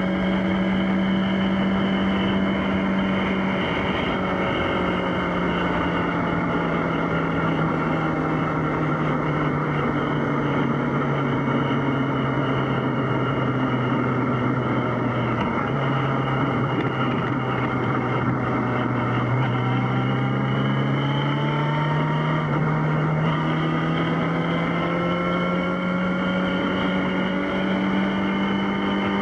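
Yamaha XJ6's inline-four engine running under way, its pitch falling steadily over the first part as the bike slows, holding low, then climbing again as it accelerates, with a steady rush of wind noise underneath.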